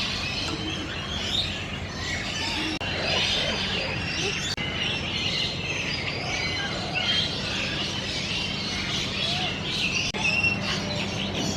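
Many birds chirping and calling at once, a dense chorus of short high chirps, over a steady low hum.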